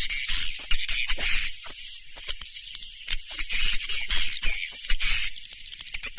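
Dense chorus of swiftlets twittering: many overlapping high-pitched chirps and quick gliding trills, a recorded swiftlet calling sound of the kind played to lure swiftlets to nest houses.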